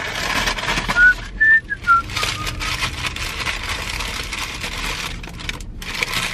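A few short whistled notes about a second in, stepping up and then down in pitch, over steady rustling and handling noise.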